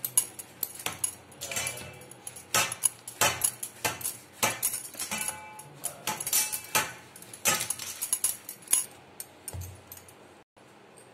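Wheat dough being kneaded by hand in a steel thali, making irregular clinks and knocks from the metal plate along with the jingle of bangles on the wrist. The sounds thin out and quieten near the end.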